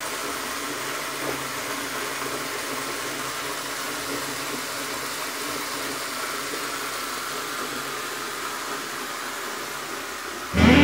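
A steady hiss of noise without any pitch, like static. Near the end, loud music comes in abruptly.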